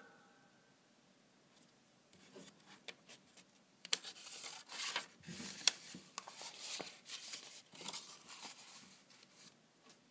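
Paper pages of a small printed booklet being handled and turned by hand: a few faint clicks, then several seconds of rustling and crinkling with sharp crackles starting about four seconds in.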